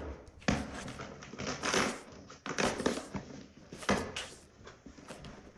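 A shipping package being opened by hand: rustling and crinkling of the packaging, with a few sharp knocks and handling thumps.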